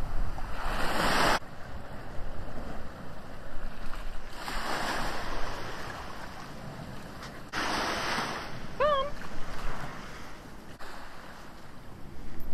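Small sea waves washing up onto a sandy beach, surging louder three times, a few seconds apart, over a steady hiss of surf, with some wind on the microphone. About nine seconds in comes one brief high call.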